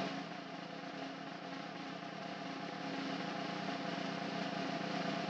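Snare drum roll sound effect from an online name-picker wheel as it spins, a dense steady roll that slowly grows louder.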